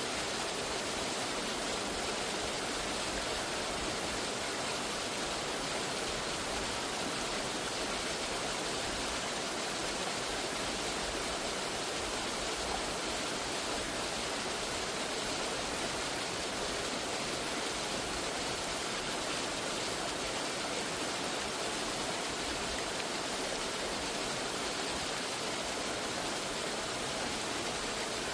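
Steady rush of falling water from a waterfall, an even roar with no change in level.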